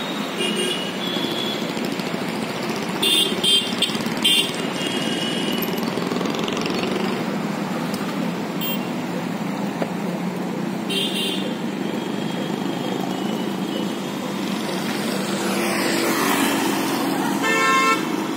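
Road traffic going by steadily, with several short horn toots about three to four seconds in, another around the middle and one near the end; a vehicle passes close shortly before the end.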